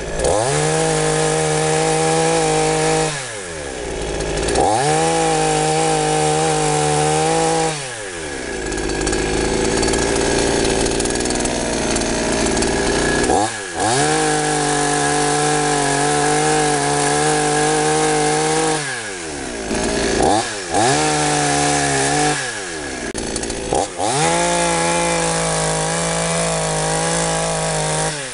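Two-stroke chainsaw with a freshly sharpened chain cutting into a log. It is revved to full throttle again and again, and its note falls back toward idle between runs. Around the middle the note sinks and turns rough for several seconds as the chain bites under load.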